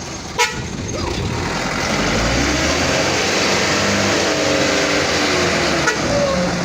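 Truck engine revving hard under load, its pitch climbing through the middle and then holding, over a rushing noise. A sharp knock sounds shortly after the start.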